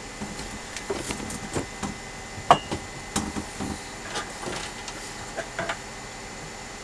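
Irregular light clicks, taps and knocks of small objects being picked up and moved about while someone rummages for a small rotary tool and its power supply, with one sharper click about two and a half seconds in.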